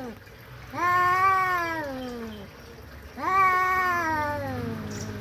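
Cats yowling in a face-off before a fight: two long, drawn-out wails, each rising and then slowly falling in pitch, the first about a second in and the second about three seconds in. It is the threat yowl of a standoff between two orange tabby cats.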